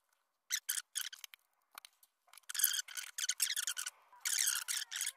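A run of short scraping and clicking bursts from a screwdriver and small metal and plastic parts being handled, sped up in time-lapse, while a Milwaukee M18 grease gun's motor and gearbox are taken apart. The bursts grow longer and more continuous from about halfway through.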